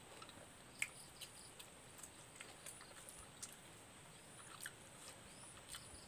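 Quiet chewing of food by hand-eaters, with a scattering of faint mouth clicks and smacks over near silence.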